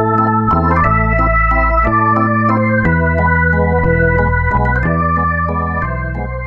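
Instrumental background music of held chords over a bass line that changes about once a second, getting quieter toward the end.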